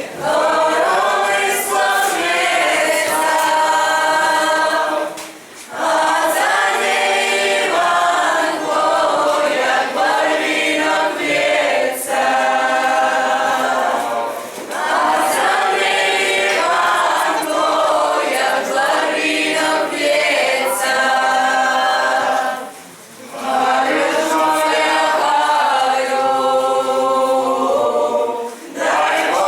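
A group of voices singing a folk-style song unaccompanied, in phrases broken by short pauses for breath.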